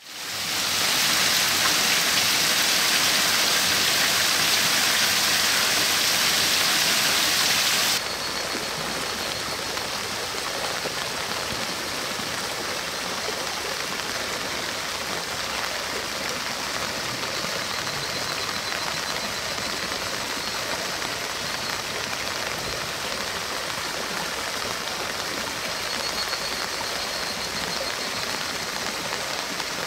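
Heavy summer thunderstorm rain pouring down, a dense steady hiss. About eight seconds in it drops suddenly to a softer, steady downpour.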